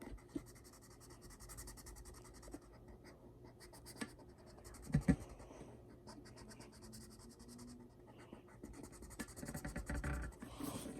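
A drawing pen or pencil scratching on paper in runs of quick, even back-and-forth strokes, as a shape is drawn and filled in. There are a couple of soft knocks about four and five seconds in.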